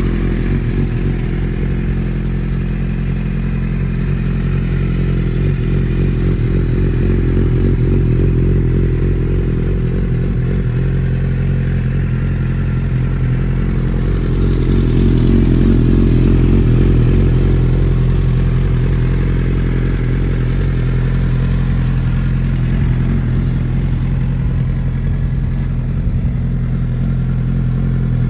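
Suzuki GSX-R1000's inline-four engine idling steadily through a Scorpion aftermarket exhaust, getting a little louder for a few seconds about halfway through.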